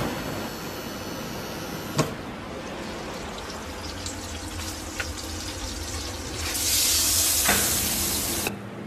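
Steady low hum of a commercial convection oven's fan, with a couple of light clicks. About six and a half seconds in, a loud hiss starts, lasts about two seconds and cuts off suddenly.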